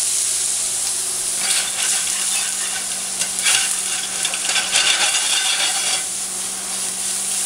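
Shrimp sizzling in a hot frying pan, stirred and turned with a spatula. Scraping and clattering come and go from about a second and a half in until about six seconds in.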